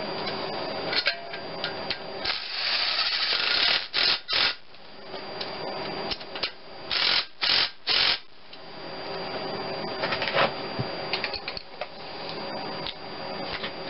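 Cordless impact driver running in short bursts as it spins in and drives down the exhaust manifold bolts: one longer run about two seconds in, then quick bursts around four, seven to eight and ten seconds.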